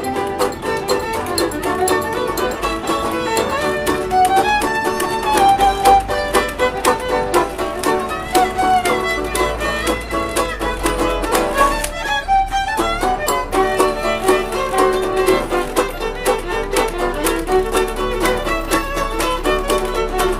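String band music with a fiddle carrying the tune, its notes sliding up and down, over a steady rhythmic accompaniment.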